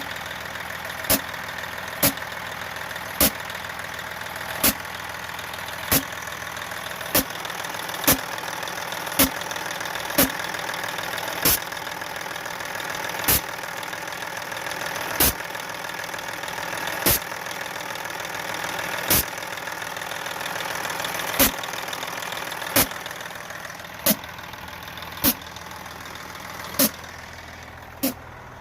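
Engine-driven air compressor running with a steady hum and a sharp knock repeating about once a second, slowing to about once every two seconds; its unloader valve is stuck.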